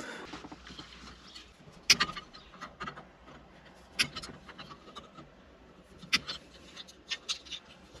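Scattered light clicks and taps from handling the skid steer joystick's thumb switch and its plastic housing while the new switch is fitted, the sharpest about two seconds in and around four and six seconds.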